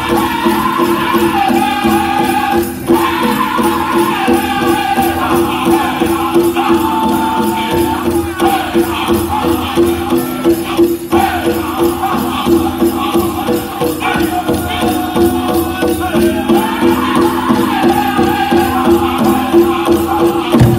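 Powwow drum group singing a men's chicken dance song in chorus over a steady, evenly pounded drumbeat, with the jingle of the dancers' bells mixed in.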